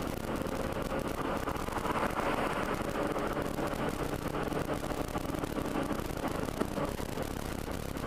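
Car cabin sound of a car on the move, picked up by a dashcam: steady engine hum and tyre-on-road noise as the car gathers speed. A single light click comes late on.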